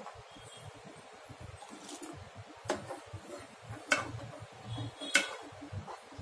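A spoon clinking against the side of a metal pan while stirring hot milk as vinegar is added to curdle it. Several sharp clinks come roughly a second apart.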